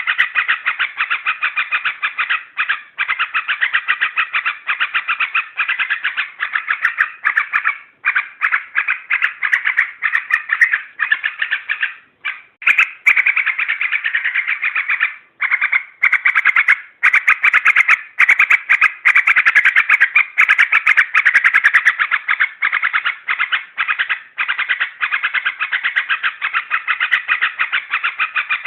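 Yellow-vented bulbul (trucukan) calling in rapid, continuous chattering phrases, broken by a few short pauses, played as a lure call to rile up or attract other bulbuls.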